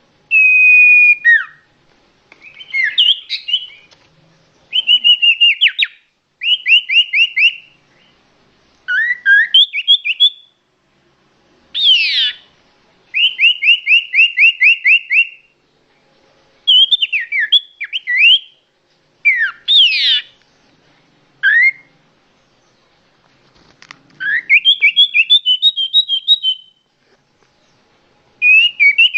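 A songbird singing: a long run of short high-pitched phrases of rapid trills and quick whistled notes, each phrase a second or two long, with brief pauses between them.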